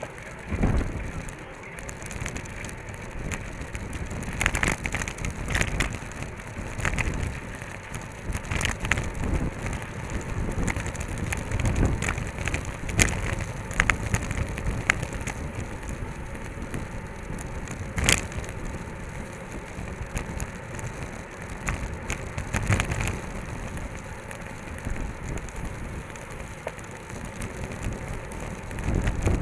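Wind rushing over the microphone and the hiss of road-bike tyres on asphalt while riding in a bunch of racing cyclists. Scattered sharp clicks and knocks from the bikes.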